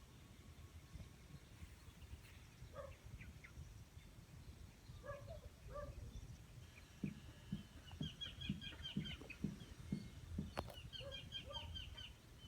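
Chickens clucking faintly, with short calls scattered through and a few quick runs of repeated notes in the second half.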